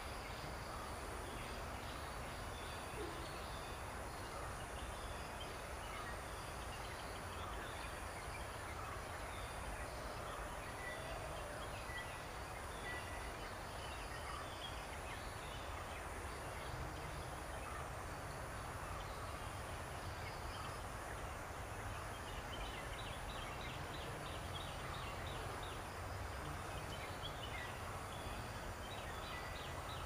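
Outdoor ambience: a steady low rumble and hiss, with a faint high buzz pulsing about once a second and scattered short chirps, which turn into quick trills in the last third.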